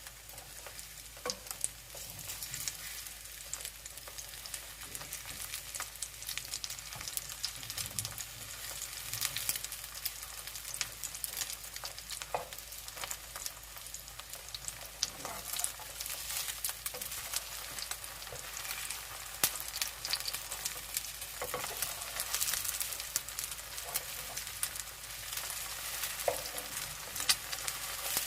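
Battered zucchini slices sizzling and crackling in hot oil in a frying pan, with a few sharper clicks here and there.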